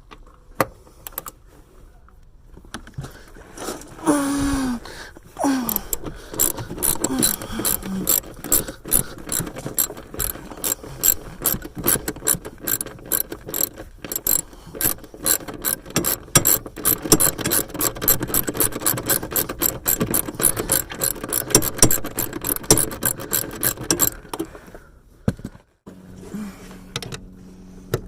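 Hand ratchet wrench clicking fast in long runs while bolts on a junked car are worked loose, after a couple of falling squeaks about four seconds in. The clicking stops shortly before the end.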